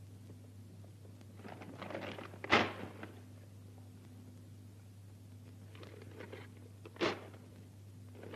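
A paper sign being crumpled and ripped, with a sharp crack about two and a half seconds in and another near seven seconds, over a steady low hum.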